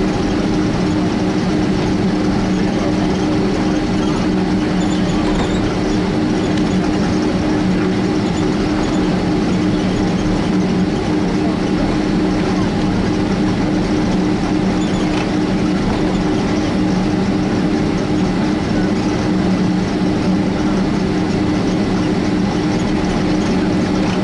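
Steady cabin drone of a Boeing 767-300 taxiing, its twin jet engines running at low thrust, with a constant low hum heard inside the passenger cabin.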